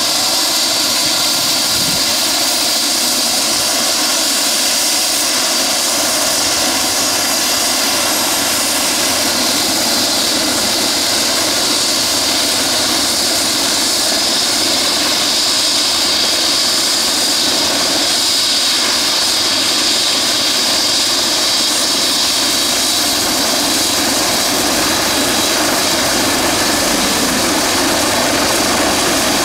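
Airbus EC135 P2 helicopter running on the pad with its main rotor turning: a steady, loud turbine whine from its twin turboshaft engines, mixed with rotor noise.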